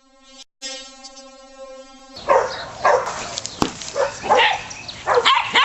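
A steady, flat buzzing tone for about the first two seconds, with a short break near the start, then a puppy yipping and barking in a quick run of short, sharp calls.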